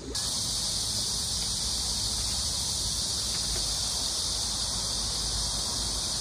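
Chorus of cicadas buzzing in one steady, high-pitched drone.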